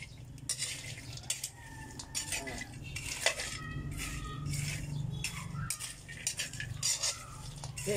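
A metal spoon stirring and scraping dried cacao seeds around a metal pan as they dry-roast over a wood fire, in irregular scrapes and clinks with the seeds rattling against the pan.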